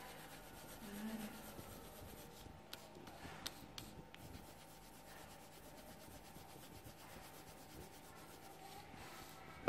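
Colored pencil scratching on paper as a picture is shaded in, a faint steady rubbing with a few light clicks.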